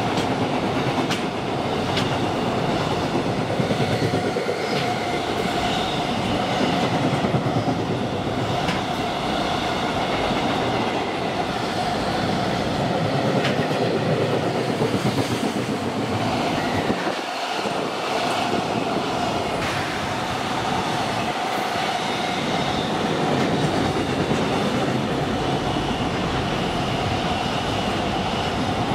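Freight train container wagons rolling past at speed: a steady rumble and clatter with scattered sharp clicks as the wheels cross rail joints. The sound briefly dips about seventeen seconds in.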